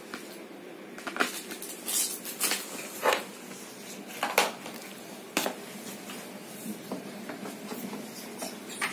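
Scattered light clicks, taps and rustles from small objects and papers being handled on a desk, about one every second or so.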